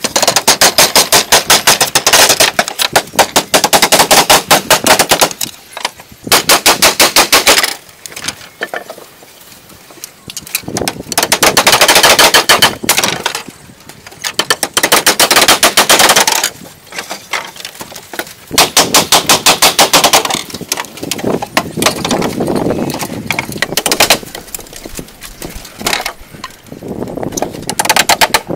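Rapid hammering on wooden slats: fast runs of sharp strikes, each lasting a few seconds, broken by short pauses.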